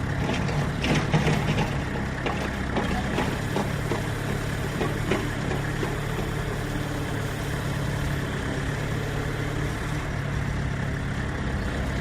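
A heavy road-construction machine's engine idling steadily, with scattered knocks mostly in the first few seconds.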